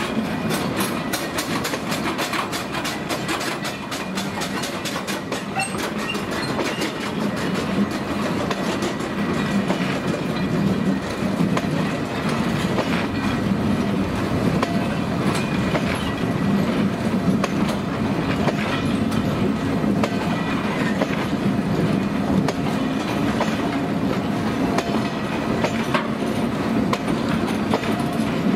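Open freight wagons of an engineering train rolling past, their wheels rumbling steadily on the rails. There is a rapid run of clicks over rail joints in the first few seconds, and scattered clicks after that.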